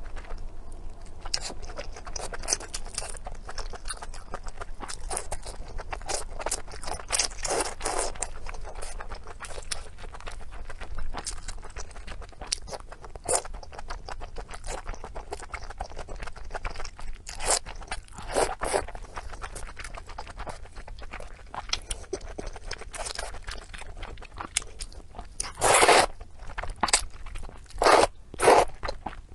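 Close-miked chewing of pork intestines: dense, irregular wet clicks and smacks, with a few louder bites near the end.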